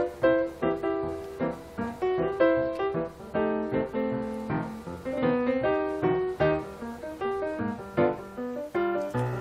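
Background piano music: a light melody of short notes played in quick succession.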